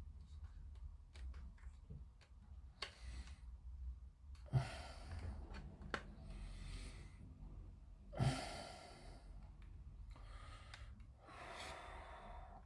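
Several long breaths out close to the microphone, about a second each, with small clicks and taps of plastic model parts being handled between them, over a low steady hum.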